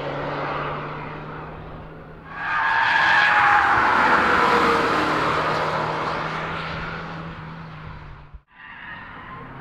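Camouflaged MINI Clubman prototype driving on a race track: its engine fades as it moves away, then the engine and tyre noise rise suddenly about two seconds in as it passes close by and fade again. Near the end the sound drops out briefly and comes back quieter.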